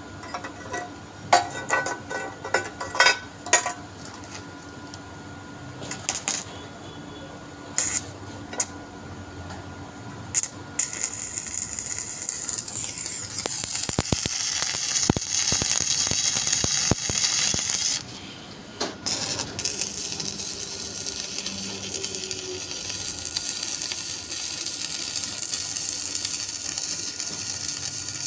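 Several sharp metallic clicks and taps, then shielded metal arc (stick) welding: the arc hisses and crackles steadily from about ten seconds in, breaks off briefly near two-thirds of the way through, and is struck again.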